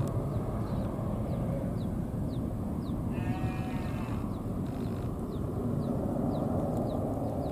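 Steady low rumble of a distant jet airliner. Over it, a farm animal bleats once about three seconds in, and faint short high chirps repeat about twice a second.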